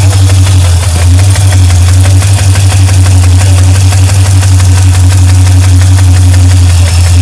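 Engine idling steadily with a rapid, even ticking running through it, the ticking noise being recorded.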